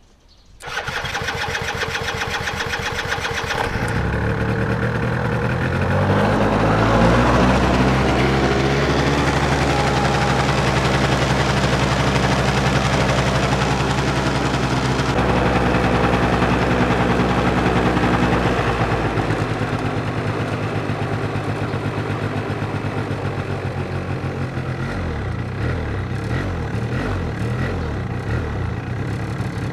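Yamaha Mint scooter's 50cc two-stroke single-cylinder engine turned over by its electric starter for about three seconds. It catches about four seconds in and runs at high, shifting revs, then drops lower and runs unevenly near the end. It is running on a lean mixture from a carburettor-side fault.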